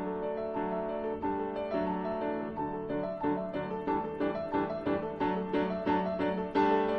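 Background piano music: held notes, then quicker repeated notes from about three seconds in.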